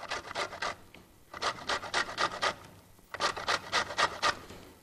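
A lemon rubbed in quick strokes against a metal box grater to take off the zest, rasping about four to five times a second, with two short pauses.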